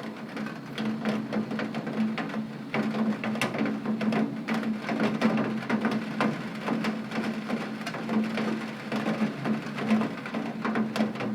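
Rain falling on a tin roof: many irregular, sharp drop strikes on the metal over a steady patter, with a steady low hum underneath.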